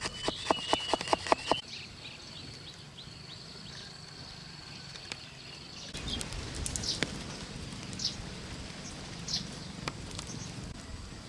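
Quick, evenly spaced scraping strokes on wood, about five a second, stop about a second and a half in. Outdoor ambience follows, with birds calling, a thin steady high tone and occasional clicks and handling knocks.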